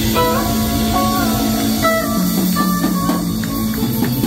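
Live rock band of electric guitars, bass, drums and keyboards playing an instrumental passage: a lead line of short stepped notes rides over held low notes and drums.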